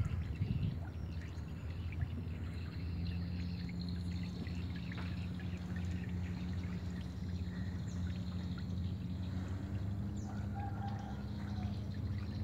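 Wooden canoe paddle dipping into calm river water, with water pouring and dripping off the blade as the boat is paddled along, a few sharper splashes at the start. A steady low hum runs underneath.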